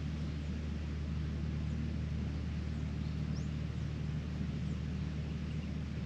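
A steady low hum with a noisy haze over it, unchanging throughout, with a few faint high bird chirps, one a short rising note a little past the middle.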